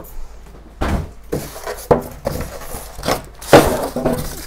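Boxed merchandise and cardboard packaging being handled and set down: a string of knocks and scrapes, the loudest about three and a half seconds in.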